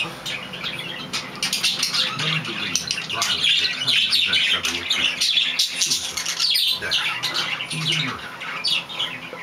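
Budgerigar chattering and warbling in a fast, unbroken stream of high chirps and squawks. This is the courtship chatter it gives while mounting a plush toy in mating behaviour.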